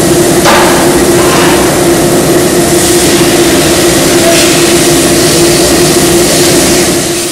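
Shafted screw compactor (Headworks Screwpactor HD) running under load with a loud, steady drone and a constant hum from its drive, with a few sharp cracks as compacted screenings are forced out of the discharge. The sound fades out near the end.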